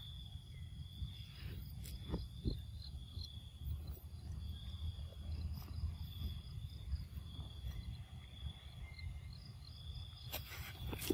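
Insects chirring in a steady high-pitched drone with a faint pulse, over a low rumble. A few short clicks, the sharpest near the end.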